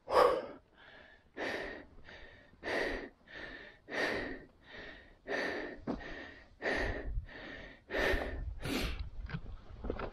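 A man panting hard close to the microphone, with rapid, even breaths at about three every two seconds, out of breath from hurrying uphill on foot.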